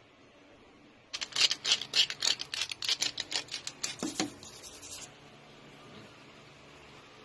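Seasoning shaker rattling as it is shaken over a raw steak, about seven quick shakes a second for some three seconds. It starts about a second in and ends with a dull knock.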